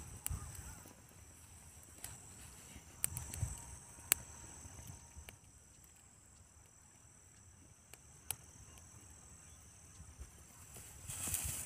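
Faint, steady high-pitched insect trilling, with a few sharp isolated clicks, one about four seconds in and another about eight seconds in.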